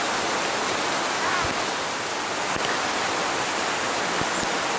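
A steady, even rushing noise with no breaks.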